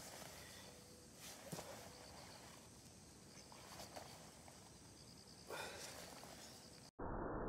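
Faint open-air ambience: light rustling and soft ticks of movement on grass, with faint insect chirping. Near the end it cuts off suddenly to a louder, muffled rushing noise.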